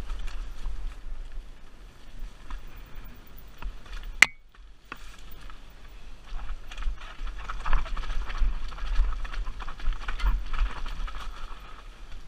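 Mountain bike riding down a rocky trail, heard from a helmet-mounted camera: tyres crunching and bumping over rock and loose stones, the bike rattling, and a low rumble of wind on the microphone. A single sharp click, the loudest sound, comes about four seconds in.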